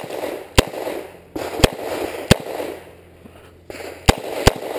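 Smith & Wesson 686 revolver firing six shots as three quick pairs, the two shots of each pair about half a second apart, each with a short echo.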